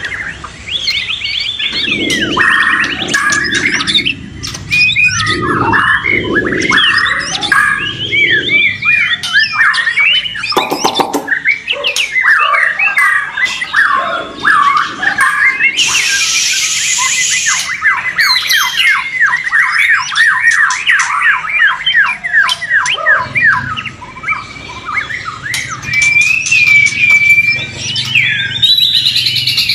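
White-rumped shamas singing loudly over one another: varied whistled phrases, chatter and long rapid trills of evenly repeated notes. A harsh rasping burst lasts about two seconds just past the middle.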